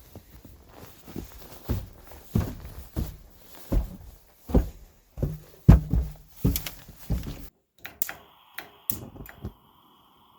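Heavy footsteps, about a step every 0.6 s. They stop abruptly, and a few light clicks follow over a faint steady whine.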